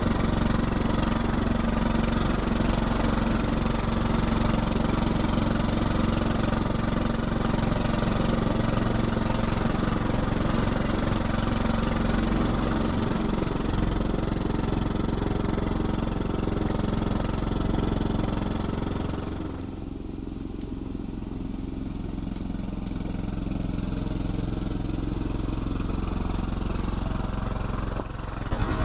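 A small engine running steadily. About two-thirds of the way through it becomes quieter and duller.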